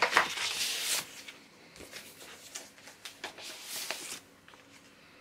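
Paper inner sleeve rustling and sliding as a vinyl LP is pulled out of its jacket and sleeve, loudest in the first second, then a few softer rustles and scrapes that stop about four seconds in.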